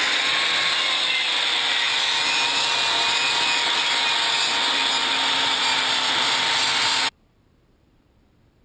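Angle grinder running steadily as its disc grinds over the face of a welded steel letter. Its motor whine holds one even pitch under the grinding noise. It stops suddenly about seven seconds in.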